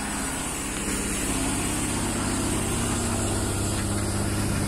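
Heavy vehicle's engine running steadily, a little louder from about a second in.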